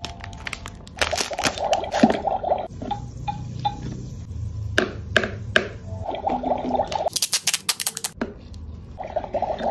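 A plastic toy wand clinking and stirring water in a plastic toy cauldron, with three short bursts of a rapid buzzing rattle. Near the end a small plastic packet crinkles as it is torn open.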